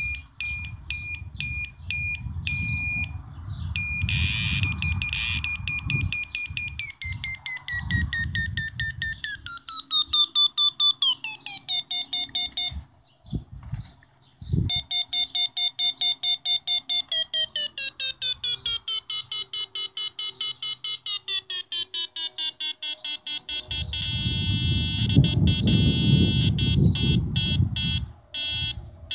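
A homemade single-oscillator 556-timer synth plays through its small built-in speaker: a harsh, buzzy electronic tone that pulses rapidly on and off while its pitch is swept downward in long glides by the frequency and pulse knobs. It breaks off briefly a couple of times near the middle. A rough low buzz sits underneath at the start and again near the end.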